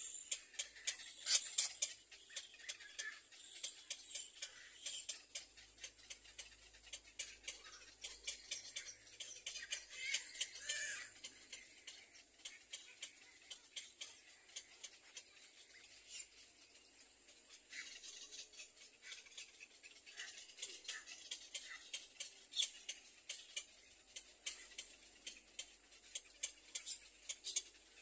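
Little egret nestlings calling at the nest: a rapid, irregular run of sharp high clicks and short chirps, with a quieter stretch around the middle.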